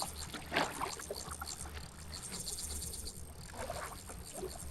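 Small aluminium tinny's outboard motor running with a faint, steady low hum, with scattered light clicks and ticks over it.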